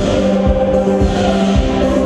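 Runway music: a steady bass beat about twice a second under long held chords with choir-like voices.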